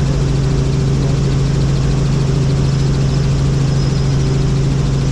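Helicopter in flight: a steady, unchanging drone of rotors and engine with a strong low hum.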